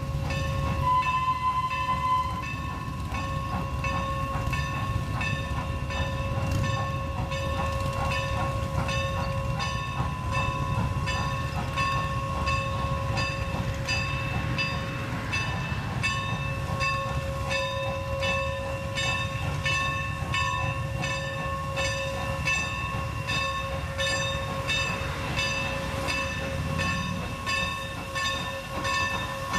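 Steam locomotive's bell ringing steadily in an even rhythm of strokes, over the low rumble and hiss of the engine.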